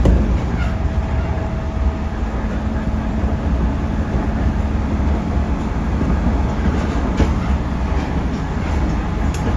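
311 series electric train running at speed, heard from inside the car: a steady heavy rumble with faint motor tones, and a few sharp clicks from the wheels over rail joints late on.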